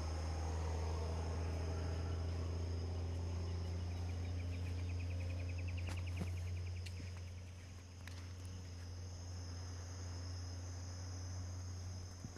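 An insect trills rapidly for about three seconds, from about four seconds in, over a steady low drone that fades after about seven seconds. A few footsteps click near the end.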